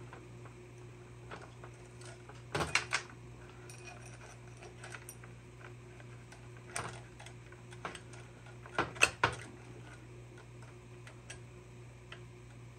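Saw chain clinking and rattling in short bursts of metal clicks as it is worked by hand around the bar and drive sprocket of a Jonsered CS2255 chainsaw. The loudest rattle comes about two-thirds of the way through, over a steady low hum.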